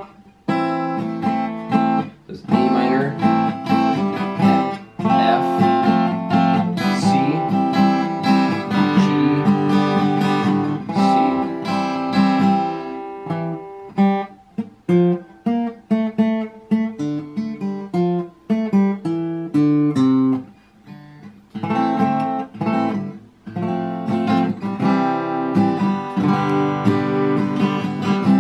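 Acoustic guitar strumming chords in the key of C. About halfway through, it changes to a run of single picked notes for several seconds, then goes back to full strummed chords.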